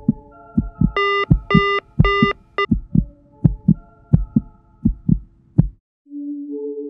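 A heartbeat sound effect of low thumps, often in pairs, over faint held tones. About a second in come four short beeps of a phone line tone. The heartbeat stops abruptly near the end, and after a moment's silence a low sustained music drone swells in.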